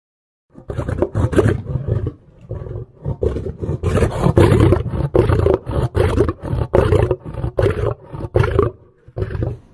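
Lion roar sound effect: after a brief silence, a deep roar opens about half a second in, followed by a long series of rapid, loud roaring grunts that taper off near the end.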